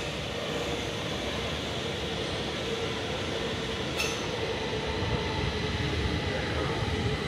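Stockholm metro train running in the station: a steady rumble with a constant whine, growing a little louder in the second half, and a single sharp click about four seconds in.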